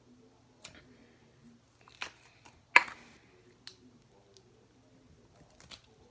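Stiff foam-bead slime being pressed and squeezed by fingers. It gives scattered sharp clicks and pops, the loudest a little under three seconds in.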